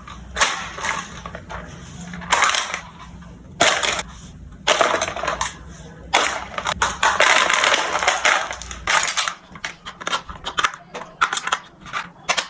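Toy packaging being handled: bursts of crinkling and rustling, then a quick run of clicks and taps over the last few seconds.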